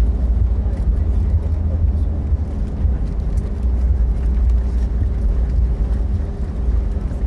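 Passenger airliner cabin during the landing approach: a steady deep rumble of engines and airflow, with a faint even hum above it.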